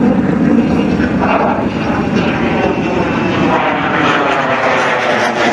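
F-16 fighter jet passing overhead: loud, steady jet-engine noise with a falling sweep in pitch as it flies by.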